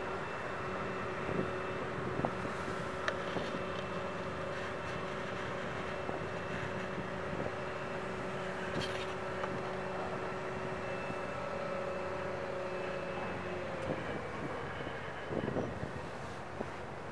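Heavy mobile cranes running while holding a suspended load: a steady machinery hum with two held tones that stop about three-quarters of the way through, followed by a brief rattle.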